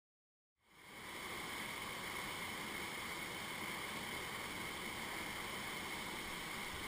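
Rushing whitewater of a river rapid: a steady, even wash of churning water that fades in about half a second in.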